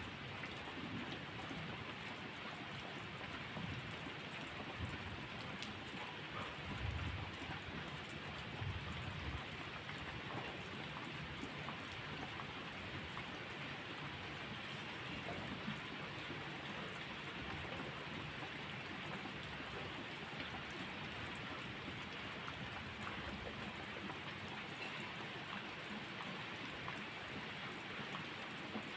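Steady rain falling, with a few low rumbles of distant thunder in the first ten seconds.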